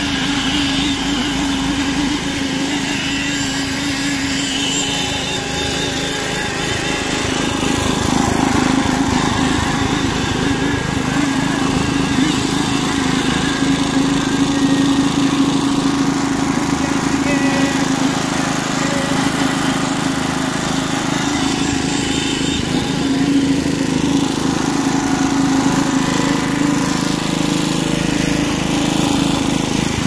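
Small engine of a concrete poker vibrator running steadily at constant speed, driving the vibrator's flexible shaft.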